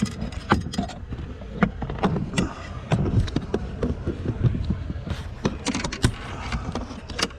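Irregular clicks, taps and knocks of hard parts and tools being handled during a shifter cable fitting, over a low background rumble.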